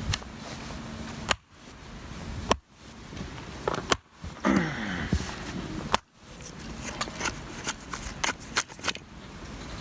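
Chopping strikes on firewood: four sharp blows spread over about five seconds, with a short falling creak after the third, then a quick run of lighter knocks and clicks.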